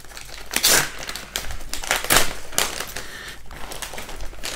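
Metallised foil pouch crinkling as hands rip it open and work the box out, in irregular rustles, the loudest about half a second in and again about two seconds in.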